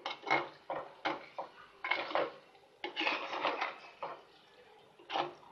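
A spoon stirring thick chicken masala in a clay pot, scraping and knocking against the pot in irregular strokes, easing off for a moment near the end before one more knock.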